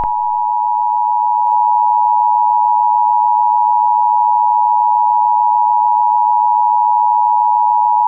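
Emergency-alert attention tone: a loud, steady electronic tone of two close pitches sounding together, starting abruptly and held without change.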